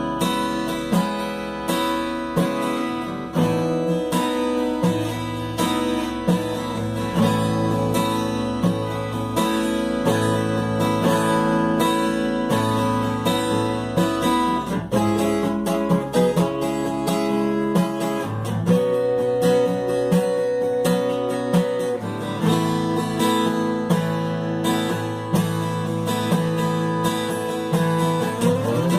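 Acoustic guitar being strummed and picked, playing a continuous piece with changing chords.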